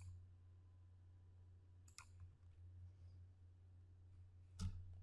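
Near silence with a faint steady low hum, broken by three short computer-mouse clicks about two seconds apart, the last and loudest near the end.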